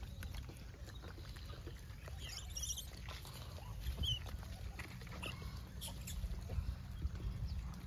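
A troop of gray langurs feeding on dirt ground: scattered scuffles, pats and rustles as they move and handle food, with a few brief high squeaks, over a steady low rumble.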